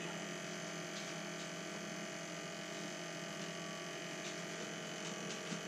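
The Power Smokeless Grill's built-in smoke-extraction fan running with a steady hum while the grill preheats.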